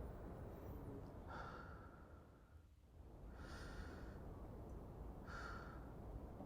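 Slow, soft breathing close to the microphone, three breaths about two seconds apart, over a faint steady low background hum.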